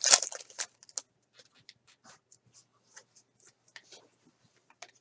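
Trading cards being handled as a pack is opened and the cards are slid and flipped through: soft paper rustling and small ticks, busiest in the first second and then sparse.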